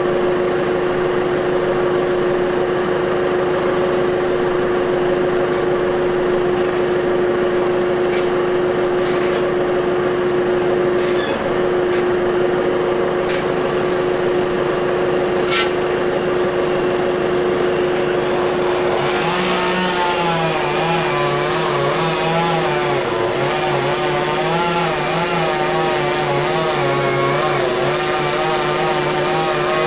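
Chainsaw engine running at a steady high pitch; about two-thirds of the way in, a second engine pitch that wavers up and down joins it.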